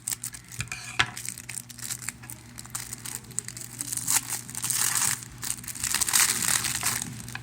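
Plastic packaging crinkling and tearing as a replacement phone LCD is unwrapped, in irregular crackly handling noise with sharp clicks that gets busier and louder in the second half.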